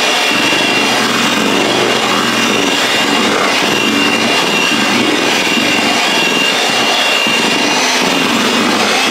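Electric hand mixer running steadily with a constant motor whine, its beaters whipping mashed potatoes and milk in a stainless steel bowl.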